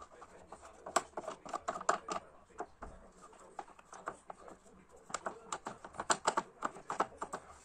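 Irregular light clicks and clacks of hands working the tailstock of a small wood lathe and taking off the turned workpiece, in two busy clusters.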